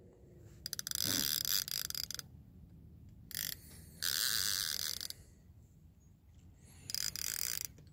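Fishing reel clicking and ratcheting in four short bursts while a big flathead catfish is being fought on the line.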